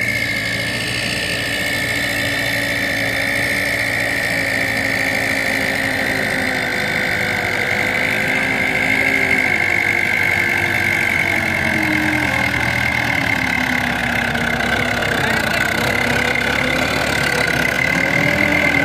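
Mahindra tractor's diesel engine running under load as it pulls a loaded sand trolley up a slope, its pitch dipping and then rising again in the second half. A steady high-pitched whine continues throughout.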